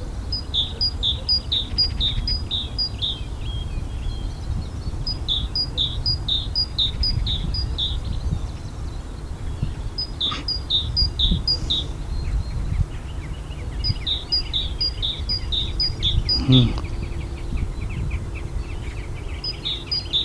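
Great tit singing its repeated two-note 'teacher-teacher' song: five runs of quick, high note pairs, each run lasting a few seconds with short pauses between. A steady low rumble lies underneath.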